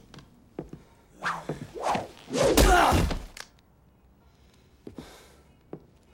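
A few dull thumps, then a loud crash-like impact noise about two and a half seconds in that lasts about a second. After that it falls quiet, with a couple of faint clicks.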